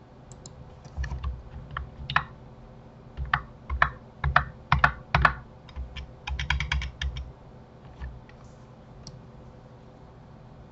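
Computer keyboard keys clicking in quick, irregular runs. The clicks thin out and stop about eight seconds in.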